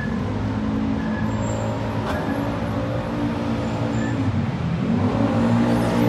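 A motor vehicle's engine running close by in street traffic, a steady low hum that rises in pitch and grows louder near the end as it pulls away.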